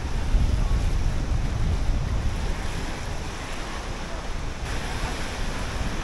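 Ocean surf breaking and washing over shoreline rocks, with wind buffeting the microphone as a low rumble, heaviest in the first half; the hiss of the wash grows brighter near the end.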